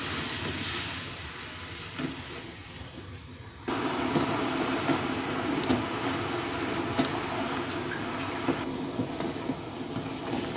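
A pan of bandrek (ginger drink) coming up to the boil, a steady seething noise as it is stirred with a metal ladle, with many short clinks of the ladle against the pan. The sound jumps louder about a third of the way in.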